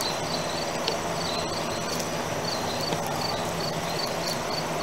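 An insect chirping steadily and high-pitched, about three chirps a second, over a steady background hum.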